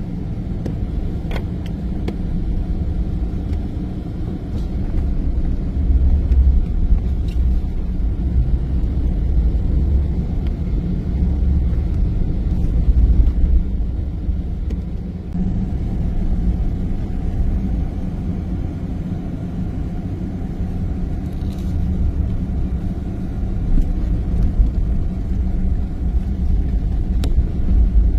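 Car driving on snow-covered roads: a steady low rumble of tyres and engine that swells and eases, with a few faint clicks.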